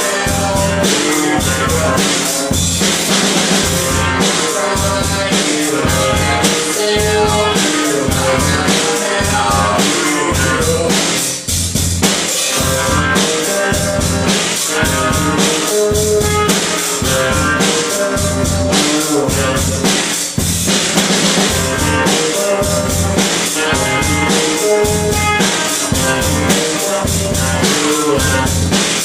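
Rock band playing a song, recorded live in a rehearsal room, with a drum kit keeping a steady beat of bass drum and snare under the pitched instruments. There are two brief drops, about 11 and 20 seconds in.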